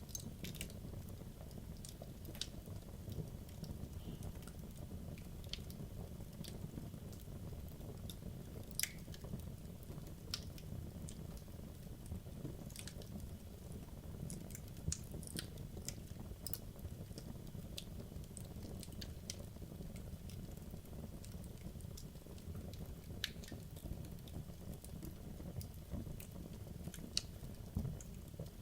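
Wood logs burning in a fireplace: a steady low rumble of the flames with irregular sharp crackles and pops from the burning wood, a few louder snaps among them.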